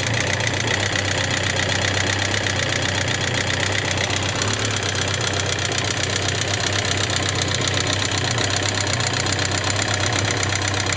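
Suzuki GSX750S Katana's air-cooled inline-four running at a steady speed with a fast, constant clattering tick ("kata-kata, kachi-kachi"). It is an abnormal noise of unknown cause that has persisted despite new rocker arms, camshaft and cam-chain parts and repeated valve-clearance adjustment.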